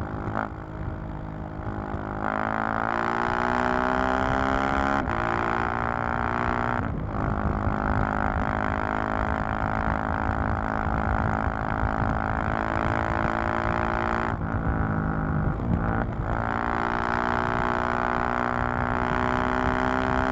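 Exhaust of a KTM 690 SMC-R's 690 cc single-cylinder engine heard from the rider's seat: revs climb in the first few seconds, with short breaks in the note about 5 and 7 seconds in as it shifts up, then it runs steadily. About 14 seconds in the revs drop off, and after a couple of seconds they climb and hold again.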